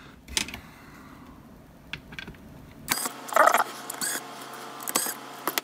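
Scattered small clicks and knocks from hands working on a plastic device and a powered screwdriver, with a short, louder rattling burst about three seconds in.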